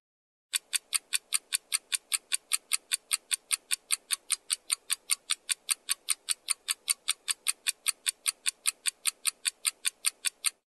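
Ticking clock sound effect used as a countdown timer: fast, even ticks, about five a second, starting about half a second in.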